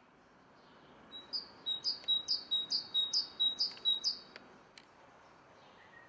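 A small songbird singing a phrase of about eight quick, evenly repeated high notes, each a short downward slur ending in a clear steady whistle, starting about a second in and lasting about three seconds.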